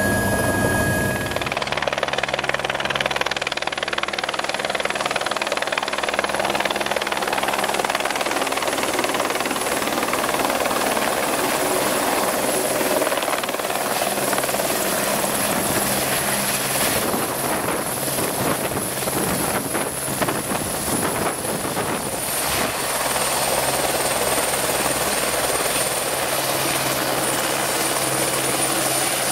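Turbine helicopter with a steady high turbine whine over heavy rotor noise, heard from outside as it hovers low and settles onto glacier ice, rotor still turning. It starts with a moment of in-cabin helicopter drone that cuts away about a second in.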